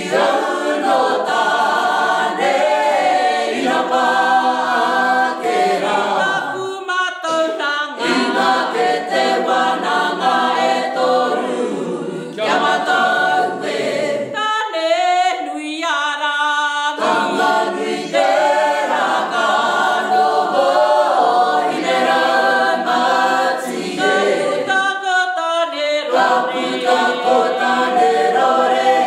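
A kapa haka group of men and women singing a Māori waiata together without instruments, in phrases separated by short breaths.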